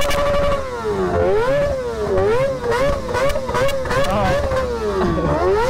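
Sport motorcycle engine revved repeatedly at a standstill by a hand twisting the throttle. It climbs steeply, then is held high with the pitch rising and falling again and again in quick blips, dipping lower once near the end before climbing again.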